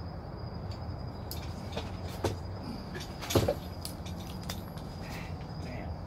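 Several sharp metal knocks and clanks from hand work on a car engine and its bay, the loudest about three and a half seconds in with a brief ring. Under them run a steady low hum and a faint steady high tone.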